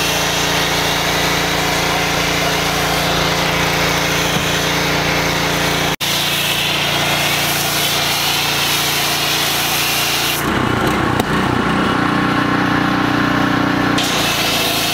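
Pressure washer running steadily, its motor's hum under the hiss of the spray hitting a car's body. The tone of the machine shifts about ten seconds in.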